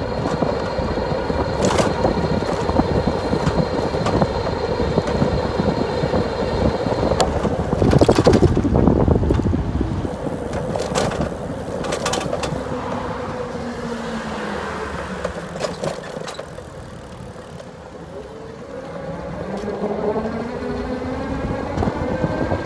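Wind buffeting the microphone and street traffic rumble while moving along a city street. The noise swells loudest about eight seconds in and eases off for a few seconds past the middle.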